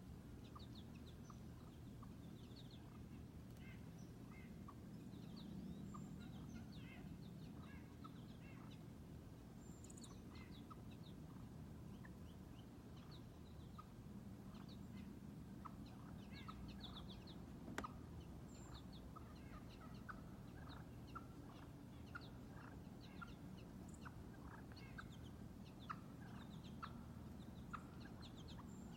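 Faint, scattered soft clucks and short chirps of a flock of wild turkeys, over a low steady hum.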